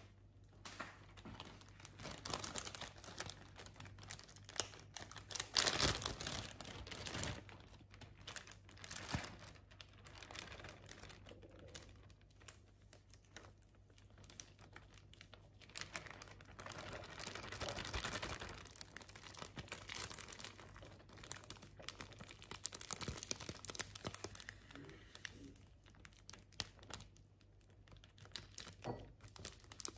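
Plastic zip-lock bag crinkling as it is handled and opened, with irregular crackles that are loudest about six seconds in and again around eighteen seconds.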